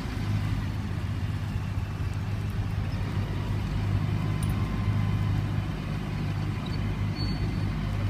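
Large modern farm tractor's diesel engine running steadily at an even speed as the tractor manoeuvres with its plough.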